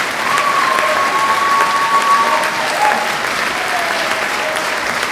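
Audience applauding a concert hall performance with steady clapping. A few drawn-out calls from the crowd rise over it, one held for about two seconds near the start.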